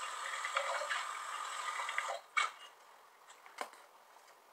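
A foil or paper food wrapper handled and crinkling, with small ticks, for about two seconds; it then goes quiet apart from two isolated light clicks.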